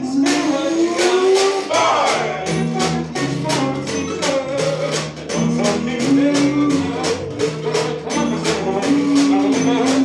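Acoustic swing band playing live: an upright bass line under held melody notes, with a steady scraped washboard beat of about four strokes a second.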